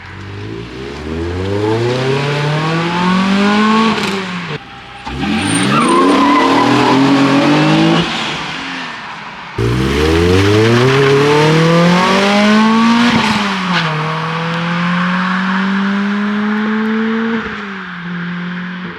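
Naturally aspirated sports-car engine accelerating hard through the gears: the revs climb steeply three times, with a dip at each upshift, then hold steadier after a shift and drop near the end.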